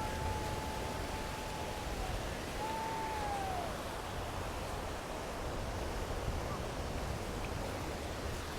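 Ocean surf washing on the beach, a steady rush of noise. A faint thin held tone sounds over the first couple of seconds, then a shorter one that rises and falls.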